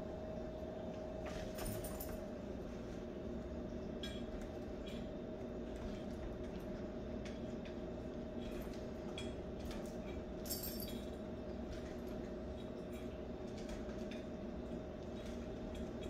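A small dog's claws clicking and tapping on a hardwood floor as it moves around, in scattered light clicks, over a steady background hum.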